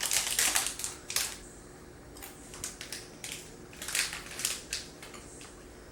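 Someone chewing yogurt-coated Skittles Dips candy, crunching in irregular clusters that are densest in the first second, with quieter gaps between.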